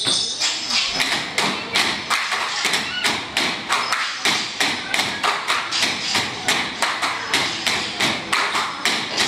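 Bamboo poles struck together and knocked on a wooden stage floor in a steady, fast rhythm of hollow wooden knocks, the beat of a Philippine bamboo-pole dance.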